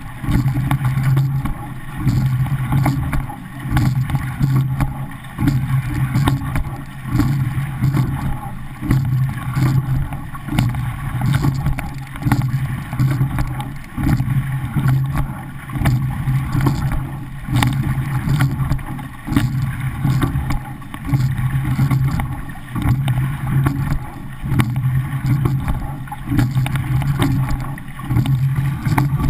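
Water rushing along the hull of a pair-oared rowing shell under way, with a low rumble, surging and easing once per stroke about every 1.7 seconds, some 35 strokes a minute.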